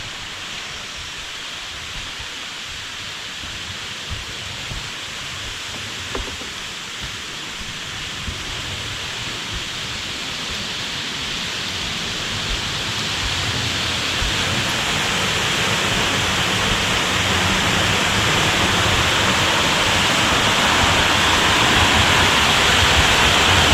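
Rushing water of a waterfall: a steady hiss that grows steadily louder throughout.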